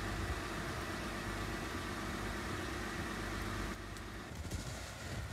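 Jeep Wrangler engine idling steadily; about three and a half seconds in it becomes a little quieter.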